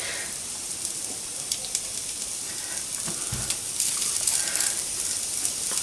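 Chopped onions and margarine sizzling in a nonstick frying pan turned up to full heat, the margarine melting, with the light scrape and tap of a wooden spatula stirring them and a soft knock about three seconds in.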